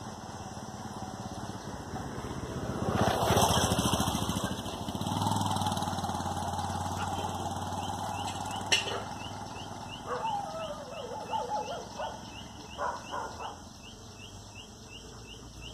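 A dog growling at its own reflection in a mirror, a rough rumbling that swells to its loudest about three seconds in. A steady hum follows, and rapid high chirps repeat evenly, about two or three a second, through the second half.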